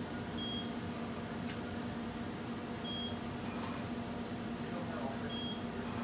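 Short, high electronic beeps from the Mitutoyo Bright Apex A710 CMM setup, three of them about two and a half seconds apart, over a steady low machine hum.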